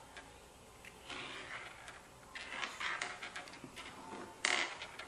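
Small beads being slid and set down on a wooden tabletop by hand, with light scraping and clicking, and a sharper click about four and a half seconds in.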